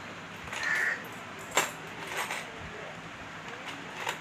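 Metal earrings clinking and clicking as they are handled: a short high chink just under a second in, a sharp click about a second and a half in, then a few lighter clicks.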